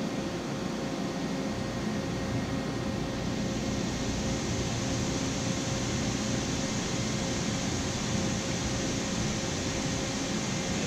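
Mazak AJV-60/80 vertical machining center running under power: a steady mechanical hum with a constant whine, and a hiss that grows stronger a few seconds in.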